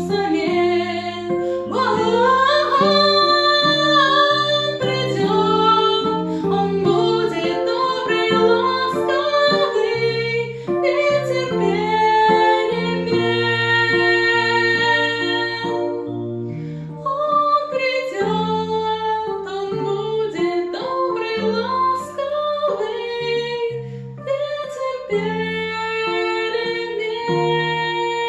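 Music: the closing instrumental part of a song, with plucked guitar and held melody notes.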